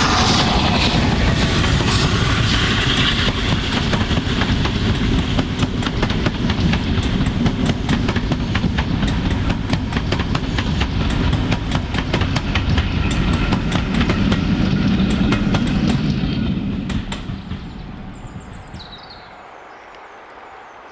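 A2 class steam locomotive 'Blue Peter' and its rake of ex-Caledonian Sleeper coaches passing close by with a heavy rumble, the coach wheels clicking rapidly over the rail joints. The sound dies away about two-thirds of the way in, leaving a quieter background with a few bird chirps near the end.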